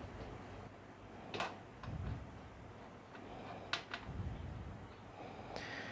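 Faint handling noises: a few light clicks and knocks, with soft low bumps, as a small transformer and its wires are moved about inside a metal amplifier chassis.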